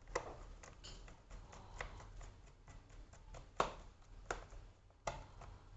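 Scattered clicks and light knocks of laptop parts and screws being handled during reassembly, with a handful of sharper taps among them, over a steady low hum.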